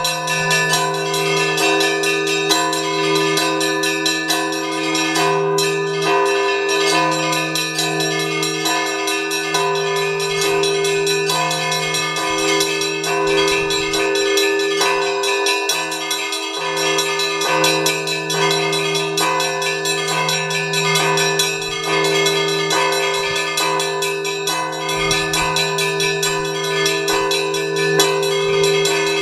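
Russian Orthodox church bells: a five-bell belfry with a 200-year-old great bell, rung by one bell ringer. Quick, dense strikes on the smaller bells ring over a steady low hum, and the tones overlap and sustain continuously.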